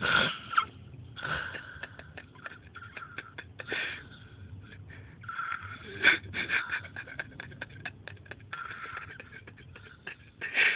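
A sleeping man snoring, with a rasping, wheezy snort on the breaths and crackling between them. The snores come irregularly, every one to three seconds.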